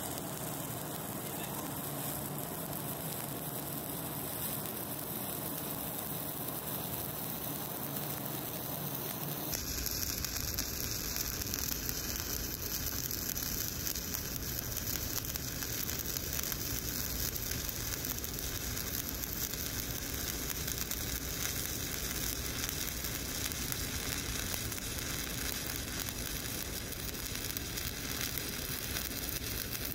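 Shielded metal arc (stick) welding arc from an E7018 electrode, burning steadily while laying a fill pass in a horizontal groove weld. About ten seconds in, the sound abruptly becomes fuller, with more low rumble and high hiss.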